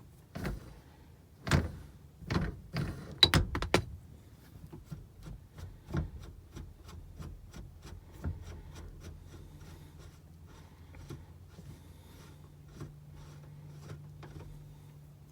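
Gear shifter knob being worked off and handled on a pickup's shift lever: several sharp knocks and clunks in the first few seconds, then a long run of quick light clicks. A faint low hum sets in about halfway through.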